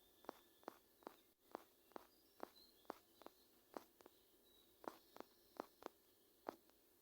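Light, sharp clicks of a finger tapping a phone's touchscreen, about two a second at uneven spacing, over near silence.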